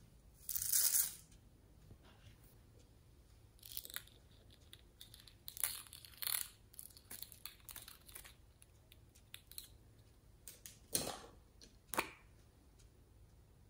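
Heart-shaped sprinkles tipped from a hand into a glass dish of beads, a short rattling hiss about half a second in. Then a plastic rainbow slinky's coils click and rustle over the dish. Near the end there are two sharper knocks as a small plastic jar is handled.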